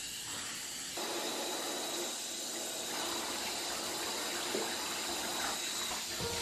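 Handheld shower head spraying water onto a dog's wet coat in a bathtub: a steady hiss of running water that gets a little louder about a second in.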